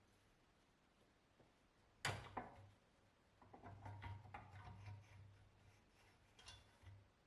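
Objects being handled: a sharp knock about two seconds in, then a couple of seconds of light clattering and clicking, and a few more clicks near the end.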